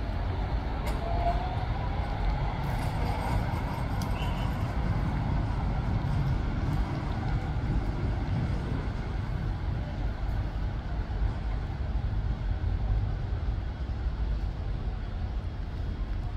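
Croydon Tramlink tram pulling away from its stop, its motors giving a faint whine that rises in pitch a second or so in, over a steady low rumble.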